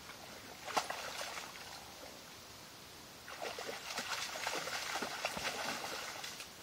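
Splashing and sloshing of steps through shallow water and mud: a short bout about a second in, then a longer run of quick splashes from about three seconds in until near the end.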